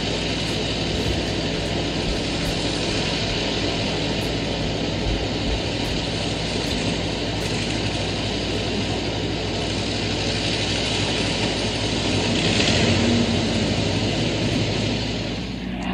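Messerschmitt Bf 109E-3's Daimler-Benz DB 601 inverted V12 engine running on the ground with the propeller turning, shortly after start-up. The sound is steady and swells a little about twelve seconds in.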